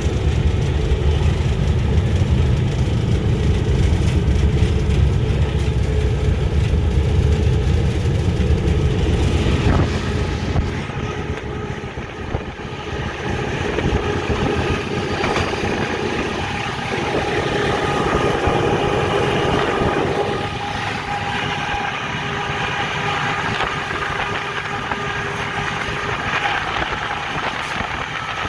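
GE U18C diesel-electric locomotive heard from inside the cab while hauling a loaded train: a heavy low engine rumble that drops away about ten seconds in, leaving lighter rolling noise with faint steady tones.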